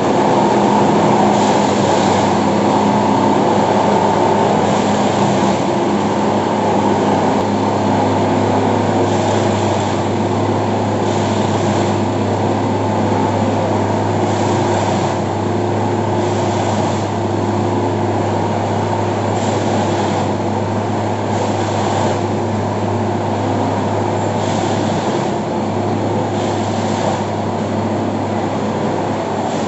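Railway ballast tamping machine working: a loud, steady mechanical drone with a low hum, and a rougher burst of noise recurring every couple of seconds as its tamping cycle repeats.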